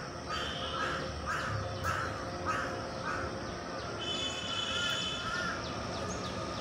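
Repeated short caw-like animal calls, about two a second at first, then fewer, with a higher steady sound about four seconds in.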